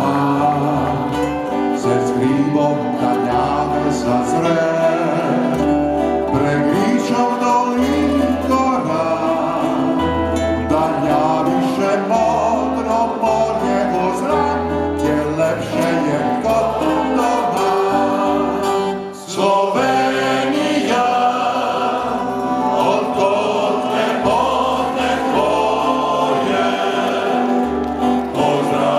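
Male klapa vocal group singing together in harmony, accompanied by plucked mandolins, an acoustic guitar and a double bass. The music briefly drops away about nineteen seconds in, then carries on.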